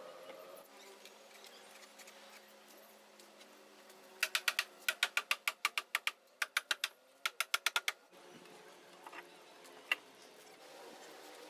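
Several quick runs of sharp, loud clicks, about five a second, from about four to eight seconds in, over a faint steady hum.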